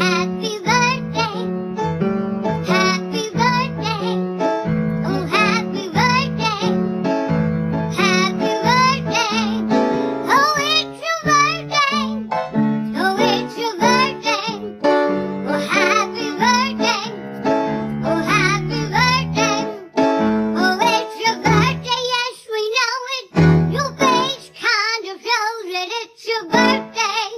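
A woman singing in a warbling comic character voice with heavy vibrato, over a keyboard accompaniment.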